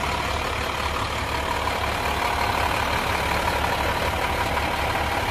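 Fire truck's diesel engine idling steadily, with a faint constant whine over the low engine noise.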